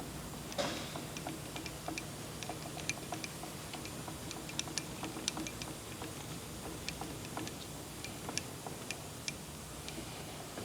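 Light, irregular clicks and ticks of metal parts being worked by hand on an engine lathe, over a low steady hum.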